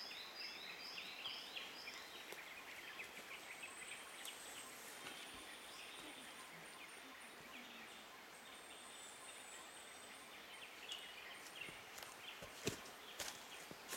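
Quiet forest ambience with birdsong: a bird's quick repeated chirps, about four a second, stop a second or two in, then a thin high whistling call runs for several seconds. A few sharp clicks come near the end.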